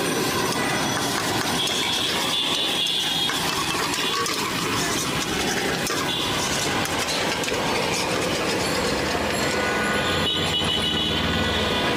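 Metal spatula scraping and clanking against a steel wok as vegetable noodles are stir-fried over a gas burner, with a few brief high-pitched squeals of metal on metal over a steady hiss.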